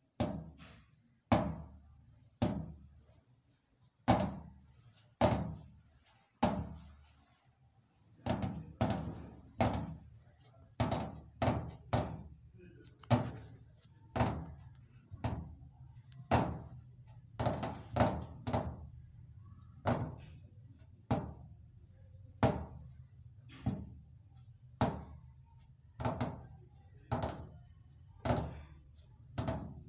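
A run of heavy percussive thumps, each with a short ringing decay, over a low steady hum. They come about once a second at first and then faster, often in pairs, from about eight seconds in.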